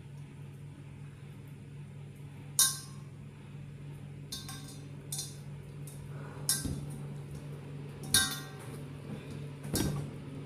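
Light clinks of dishware, about six scattered short taps, as hands work at food over a plate or bowl. A steady low hum runs underneath.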